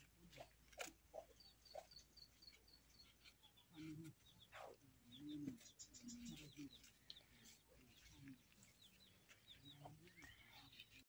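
Faint outdoor ambience: small birds chirping, with a run of short high chirps early on and a few low clucking calls in the middle, plus scattered soft clicks.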